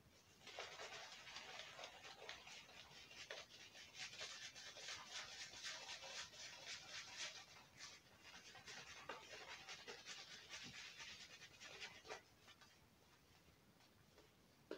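Shaving brush working Proraso shaving-soap lather over a beard and neck: a faint bristly rubbing full of small crackles that dies away about twelve seconds in.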